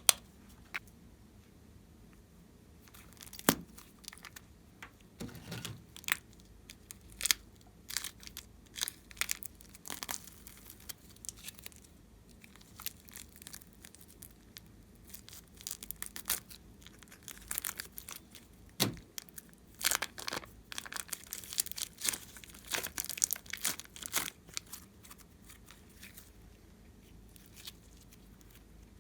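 Glossy slime being squished and stretched by hand, giving irregular sticky clicks and crackling pops in clusters, with quieter pauses between them.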